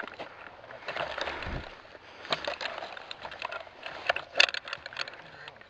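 Irregular crunching, snapping and clicking close to the microphone, the noise of a player moving in dry brush and handling gear, with a dull thump about one and a half seconds in.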